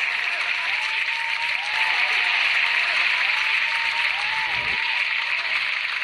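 Crowd applauding steadily, with faint voices rising and falling over the clapping.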